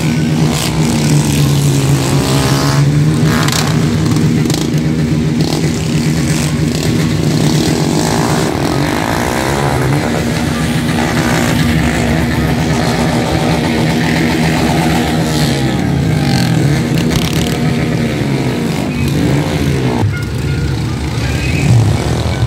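Several small street motorcycle engines revving and running, overlapping, their pitch rising and falling as riders hold wheelies down the strip.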